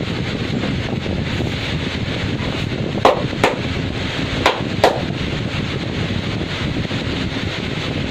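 Four sharp hand smacks, in two quick pairs about three and four and a half seconds in, over a steady wash of street-traffic noise.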